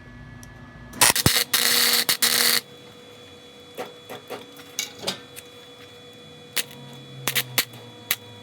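A cheap wire-feed welder's arc crackling and sputtering in short broken runs for about a second and a half, starting about a second in, then scattered sharp pops and clicks. The uneven, stop-start arc goes with a poor weld that is blamed on the cheap machine.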